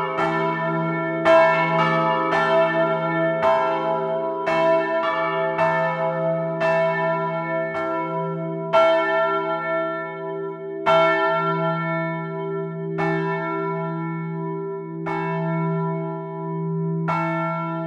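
Swinging bronze church bells of a three-bell peal, tuned to e', a' and d-flat'', with the clappers striking over a steady low hum. The strikes come close together at first, then thin out to about one every two seconds in the second half, each leaving a long ring.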